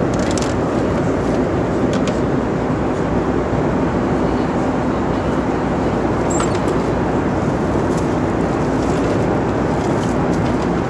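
Steady, even rush of cabin noise aboard a Boeing 747-400, with a few faint clicks from handling the tray table.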